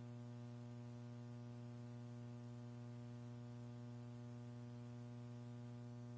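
Steady low electrical hum with a ladder of higher overtones above it, unchanging: mains hum on the countdown communications audio line.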